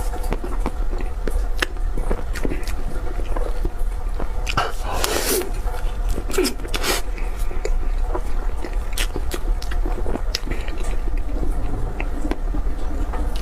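A person eating cake close to the microphone: chewing and mouth sounds with many scattered sharp clicks, and louder smacking noises around five and seven seconds in.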